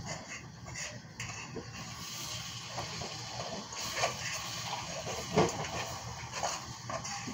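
A few light clinks and knocks of kitchen utensils over a steady low hum, the loudest knock about five seconds in.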